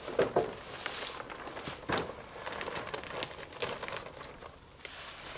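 Black plastic bag sheeting crinkling and wooden poles knocking as a pole-and-plastic bunk is handled and set onto wooden tripod legs, with sharp knocks just after the start and again about two seconds in. Footsteps rustle in dry leaves.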